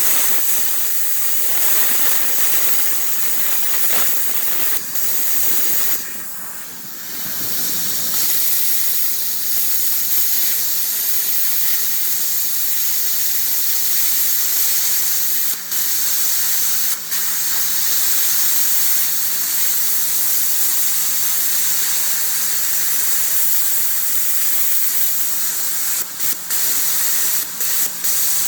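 Plasma cutter running: a steady loud hiss of air through the torch with a low steady hum, breaking off briefly a few times, the longest about six seconds in.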